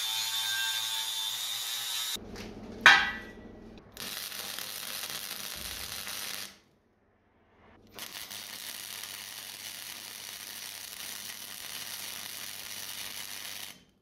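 Angle grinder whining as it grinds the steel of an old LPG tank for about two seconds, followed by a sharp knock. Then MIG welding: two runs of steady crackling hiss with a short silent gap between them, each stopping abruptly.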